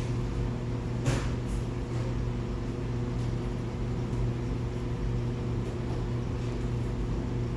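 Steady low machine hum with a few even overtones, and a single sharp click about a second in.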